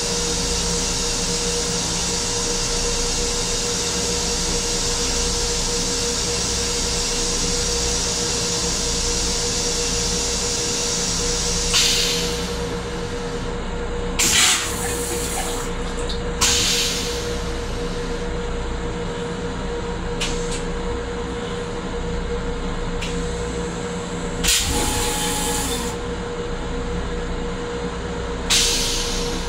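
Rail-car toilet running its flush cycle: a steady hiss of rinse water cuts off about twelve seconds in. Five short hisses follow a few seconds apart, over the constant hum of the railcar.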